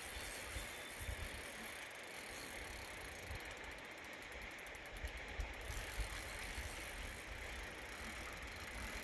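Fishing reel ticking and whirring while a hooked steelhead is played on a bent rod, with a run of fast ticks around the middle. Underneath, a steady rush from the river and wind buffeting the microphone.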